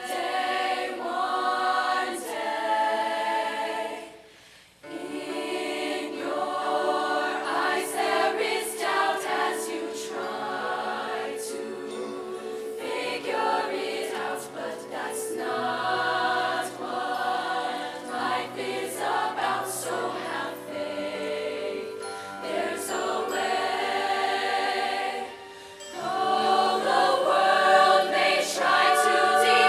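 A choir singing in harmony, with held low notes under the upper voices; the singing breaks off briefly about four seconds in and again shortly before the end.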